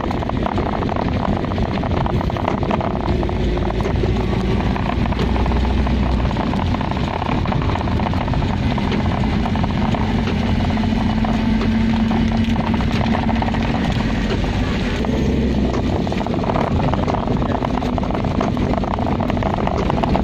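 Car driving on a wet road in heavy rain, heard from inside the cabin: a steady mix of engine and tyre noise with rain pattering on the body and windscreen.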